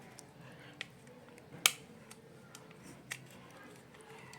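Three sharp clicks of small hard parts being handled during electrical switch repair work, the middle one the loudest.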